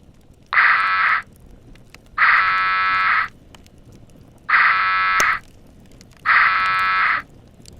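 An electronic buzzer sounding four times, each buzz steady in pitch and about a second long, with roughly a second's pause between them.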